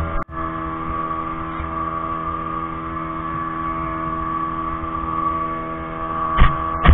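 Speedboat engine running at a steady speed, heard from on board as an even, many-toned drone. Two sharp thumps come near the end.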